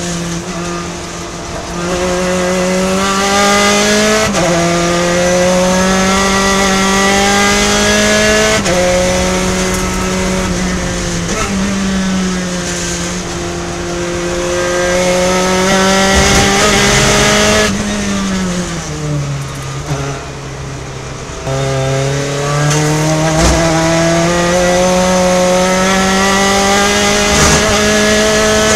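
Gen3 Spec Racer Ford's four-cylinder engine at full racing effort, heard from the cockpit. Its pitch climbs through the revs and drops back at each upshift, falls as the car slows for a corner about two-thirds of the way through, then climbs again under full throttle.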